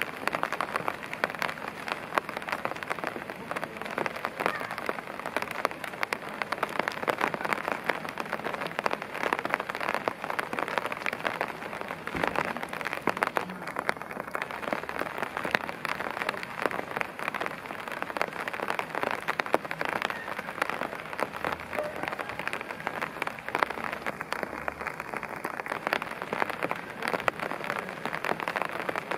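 Steady rain falling, a dense, unbroken stream of individual drop hits.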